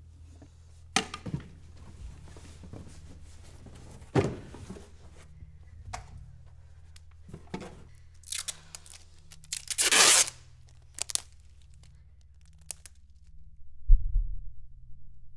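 Handling noises of a framed photograph: scattered clicks, knocks and rustles, with one longer ripping sound about ten seconds in, over a steady low drone. A deep thump lands near the end.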